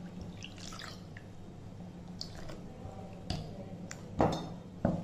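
Water poured from a steel tumbler into thick ragi flour batter in a glass bowl, then a steel spoon stirring the batter with soft wet squishing and a few sharp clinks against the glass bowl, the loudest a little after four seconds.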